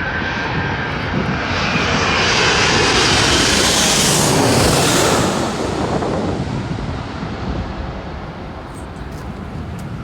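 Jet airliner passing low overhead: loud engine noise with a high whine that climbs in pitch and grows louder, peaking about four to five seconds in, then fading to a lower rumble.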